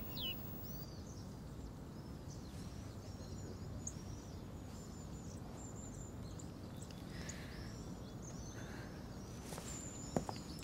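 Small birds chirping in short, high, repeated calls over a steady low background hiss, with a brief sharp tap near the end.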